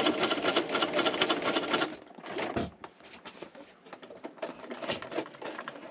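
Toyota domestic sewing machine stitching a zipper onto heavy canvas and clear vinyl, running fast with rapid, even needle strokes for about two seconds, then going quieter in short, intermittent runs.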